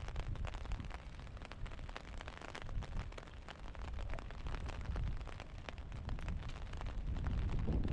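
Dense crackling and pattering over a heavy low rumble of wind buffeting the microphone.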